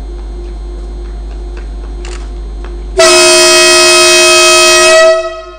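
A CRH high-speed train sounding its horn: one loud, steady blast of about two seconds that starts about three seconds in and cuts off sharply, the signal as the train departs. Before it, a low steady hum.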